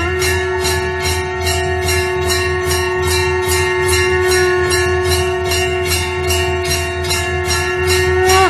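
Conch shell (shankh) blown in one long steady note, held almost throughout and breaking off near the end. Temple bells ring underneath in an even, rapid rhythm of a few strokes a second.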